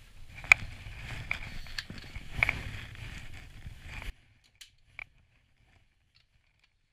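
Handling noise of a camera with a long telephoto lens being set up: scattered clicks and knocks over a low rumble. The sound drops away abruptly about four seconds in, leaving only a few faint ticks.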